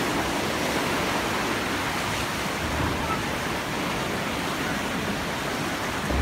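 Fast mountain creek rushing over rocks and rapids: a steady rush of white water.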